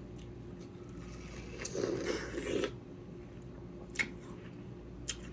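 Someone biting into juicy watermelon: a wet, squishy bite lasting about a second near the middle, followed by two short clicks later on.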